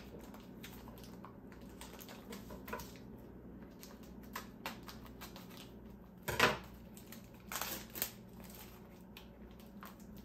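Scattered light clicks and taps of baking things being handled, with one louder knock about six seconds in, over a faint steady low hum.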